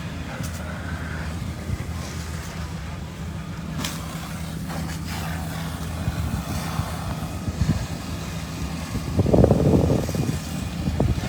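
Fire truck's diesel engine running steadily, a constant low hum, with scattered clicks and a louder rush of noise about nine seconds in.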